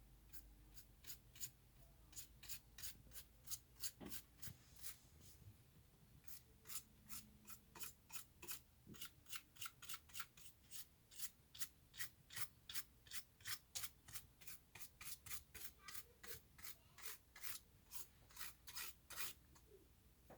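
Faint, quick scratchy strokes, about two to three a second with a short pause early on, typical of a small brush being worked over the inside of a laptop to clear dust.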